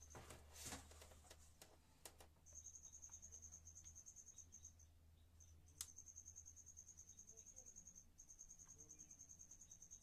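Faint cricket chirping in long trills of rapid pulses, breaking off and starting again several times. A few soft clicks and knocks of handling sit under it, with one sharper click about six seconds in.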